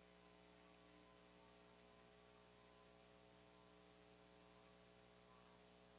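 Near silence: a faint, steady electrical hum with many evenly spaced overtones, over a light hiss.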